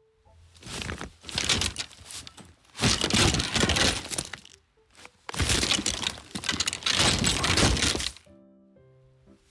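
Golf sound effects: three long, loud noisy rushes, each two to three seconds, followed near the end by a short run of stepped electronic tones.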